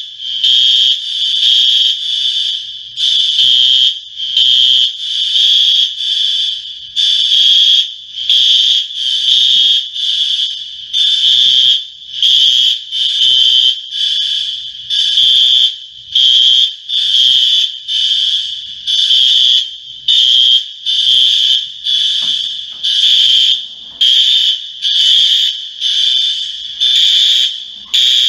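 Apartment building fire alarm sounding: loud, high-pitched electronic beeps repeating steadily.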